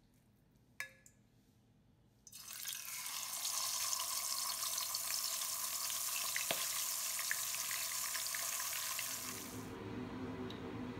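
Whole pomfret frying in hot oil in a wok: a steady sizzle, dense with small crackles, that starts suddenly about two seconds in and stops shortly before the end.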